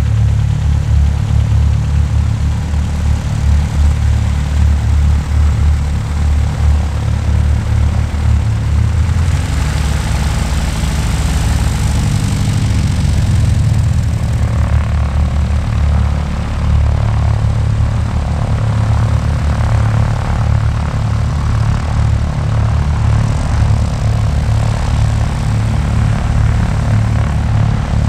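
Sonex homebuilt light aircraft's piston engine and propeller running steadily at low taxi power as it taxis past. A hissier propeller sound swells for a few seconds about a third of the way in.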